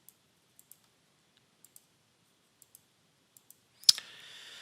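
Computer mouse clicking: faint press-and-release pairs of clicks about once a second, then a sharper, louder click followed by a short soft hiss near the end.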